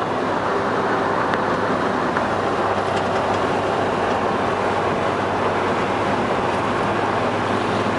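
1972 Oldsmobile Cutlass 442 driving along at a steady pace: an even mix of engine, tyre and road noise with no change in speed.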